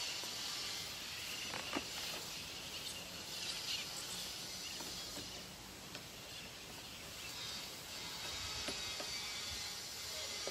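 A hand-held crop sprayer's nozzle hissing as it throws a fine mist, swelling and easing in strength, with a few light clicks.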